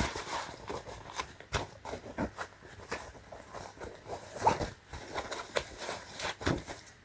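Irregular soft taps, clicks and rustles of a fabric cap being handled.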